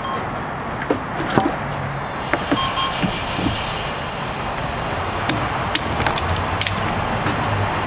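Steady hum of road traffic, with scattered clicks and knocks from a gas pump's fuel nozzle being handled and fitted into a boat's fuel filler, several in quick succession in the second half.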